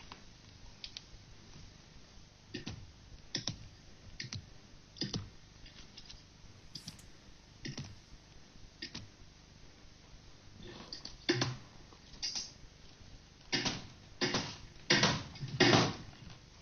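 Paintbrush and wet paint slapping and smacking against a canvas in irregular sharp strokes, sparse at first, then louder and closer together near the end.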